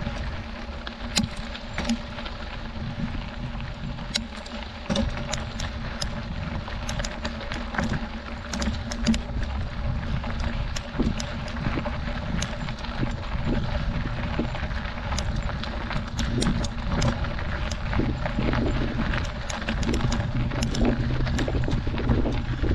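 Mountain bike rolling over a gravel dirt road, with a steady low rumble of wind and tyre noise on the microphone and frequent sharp clicks and rattles from the bike over the stones.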